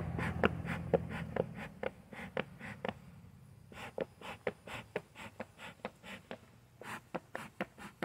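Bee smoker's bellows being pumped by hand: a quick run of short puffs of air, about three a second, with a short pause about three seconds in.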